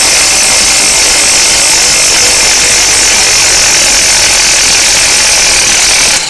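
Electric power tool running flat out to turn a seized ball-joint pinch bolt, a loud continuous mechanical noise that stops abruptly about six seconds in as the bolt frees.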